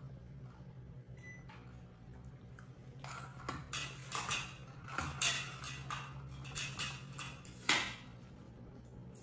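A run of clattering knocks and scrapes, like hard household objects being handled, over a steady low hum; the loudest knock comes near the end.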